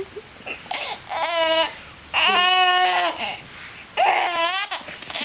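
A baby vocalizing in three long, high-pitched, drawn-out wavering sounds, about a second in, two seconds in and four seconds in.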